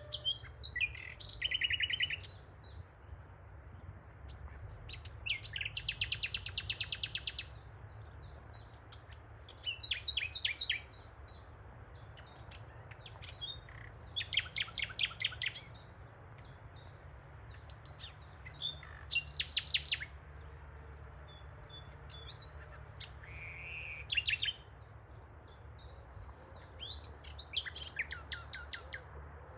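A songbird singing in short phrases of rapid, high trilled notes, one every few seconds, over a steady low rumble.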